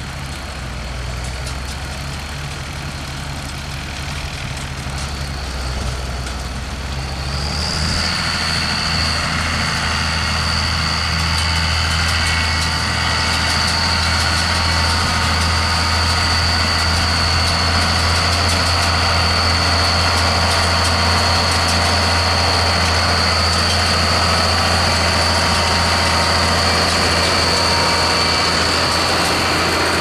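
Case IH 956XL tractor's six-cylinder diesel engine running steadily as it pulls a working Criap Midi-Baler 85 baler-wrapper, with a steady high-pitched whine over it. About eight seconds in, the machinery sound grows louder and fuller and then stays there.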